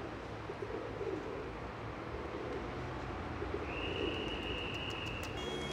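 Feral rock pigeons cooing, low wavering coos repeated over a steady low city hum. A steady high whistle-like tone sounds for about a second and a half past the middle.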